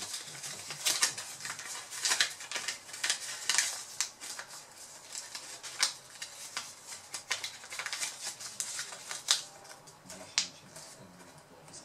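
Tape being handled, smoothed and pressed down by fingers over a laptop's display ribbon-cable connector, with irregular small crinkles and clicks against the plastic lid. The connector is being taped over as a safety measure while the battery is still charged.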